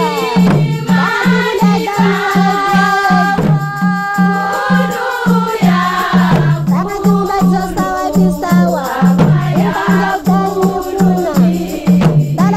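Women's choir singing a deba, the Mahoran devotional chant with Arabic words in praise of the Prophet, over hand-held frame drums beating a steady pulse about three times a second.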